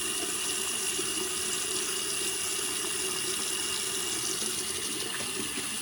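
Sink faucet running steadily into the basin, the water draining freely down a just-unclogged drain while the reassembled trap is tested for leaks.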